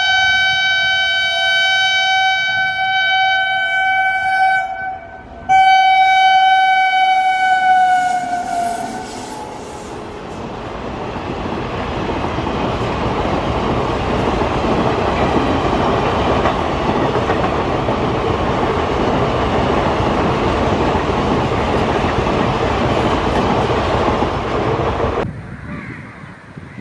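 EMD diesel locomotive's air horn blowing a long blast, breaking off briefly about five seconds in, then sounding again and sagging slightly in pitch as it dies away. Then the passing train's wheels and rails make a steady rushing noise that cuts off suddenly near the end.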